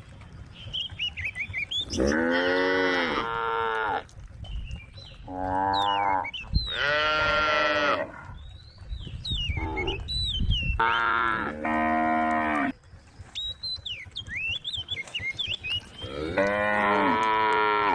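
A herd of cows mooing to one another: about seven long, drawn-out moos from several animals, some overlapping, with high chirping in the gaps between them.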